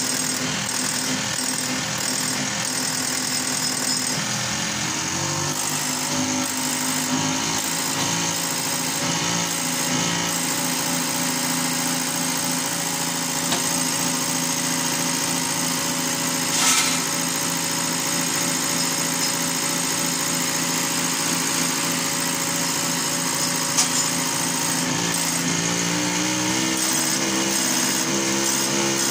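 A truck's electronic rotary diesel injection pump running on a test bench, its test injectors firing rapidly. The pitch shifts a few seconds in and climbs near the end, with a sharp tick about two-thirds of the way through.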